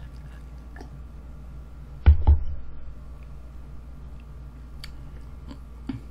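A plastic drinking cup set down on a table with two quick, heavy knocks about two seconds in. Small sticky clicks and squishes follow as bare fingers work through rice and cheese-covered fried chicken.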